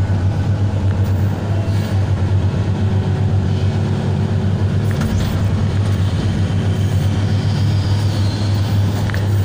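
Komatsu hydraulic excavator's diesel engine running with a steady low drone while its arm and bucket dig and load.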